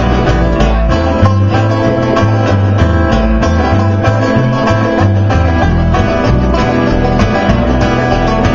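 Bluegrass band playing live, an instrumental passage: a banjo and an acoustic guitar picking quick notes over a low bass line that steps from note to note.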